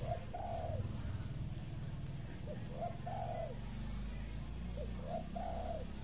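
Spotted dove cooing: three phrases about two and a half seconds apart, each a short note followed by a two-part coo. A low steady rumble runs underneath.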